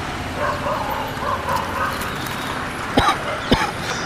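Dogs barking: two short, sharp barks about three seconds in, half a second apart, over steady outdoor background noise, with faint wavering calls earlier.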